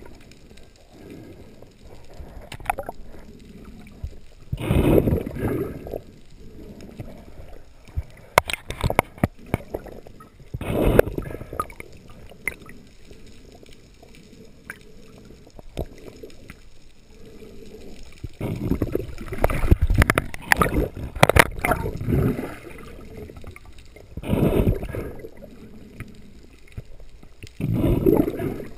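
Water sloshing and gurgling around an underwater camera near the surface, with louder surges of a second or so every few seconds and scattered sharp clicks in between.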